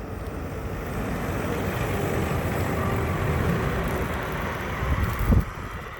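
Snow plow truck driving by with its blade up, not plowing: engine and tyre noise swelling to a peak about three seconds in, then easing off. A brief low thump sounds near the end.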